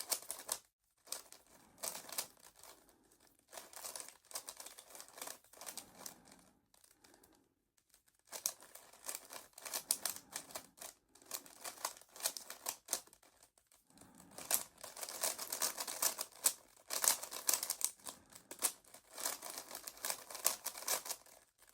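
Rubik's cube being turned by hand: rapid plastic clicking and clacking of the layers, in bursts with short pauses, busier and louder in the last third.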